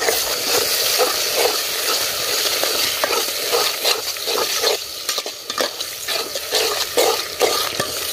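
Onions, green chillies and ginger sizzling in hot oil in a metal pot, with a steel spoon stirring and scraping them round the pot in repeated strokes.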